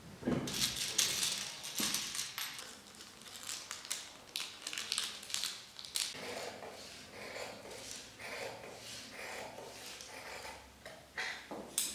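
Flannel fabric and tissue-paper sewing pattern rustling as the cloth is shaken out and the pattern pinned on, with small clicks. Later comes a run of short crunching snips as scissors cut through the flannel.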